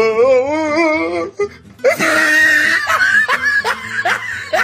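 A man's voice drawn out in one long wavering, sung tone, then breaking into short repeated bursts of laughter, with music playing underneath.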